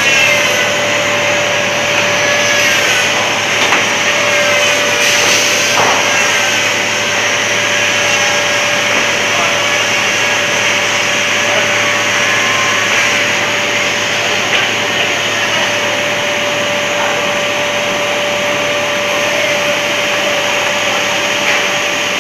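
Steady running noise of a PUR glue door-panel laminating line: an even, loud whirring hiss with a steady mid-pitched hum tone held through it.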